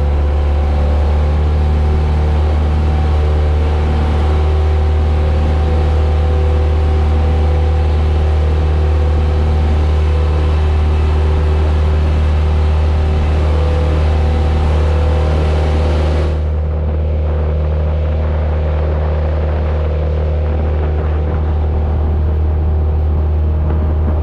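Engine of a motorized outrigger boat (bangka) running steadily under way with a deep, even drone. A higher rushing hiss over it thins out suddenly about two-thirds of the way through while the engine carries on unchanged.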